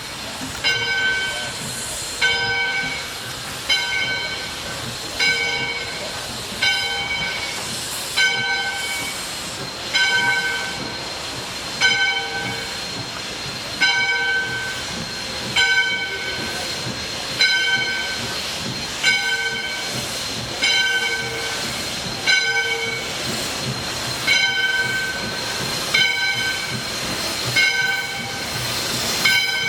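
Steam locomotive bell on ALCO 2-8-2 Mikado #40 ringing steadily, about one stroke every second and a half to two seconds, over a steady hiss of steam.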